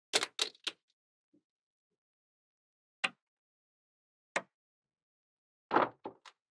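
Small magnetic balls clicking as they snap together: a quick run of three clicks, single clicks about three and four seconds in, and a short cluster of clicks near the end.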